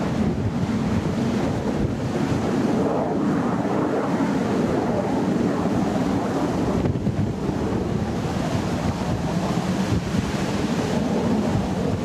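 Steady, distant roar of the Red Arrows' BAE Hawk jets, mixed with wind buffeting the microphone.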